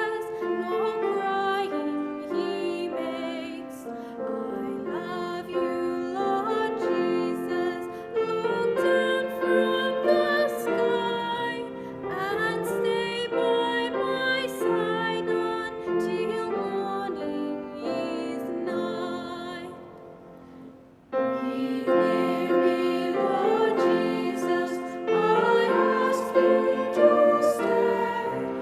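Voices singing a slow carol to piano accompaniment, with vibrato on the held notes. The music breaks off briefly about two-thirds of the way through, then the singing and piano start again.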